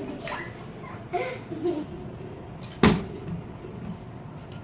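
A single sharp knock about three seconds in, standing out over faint children's voices.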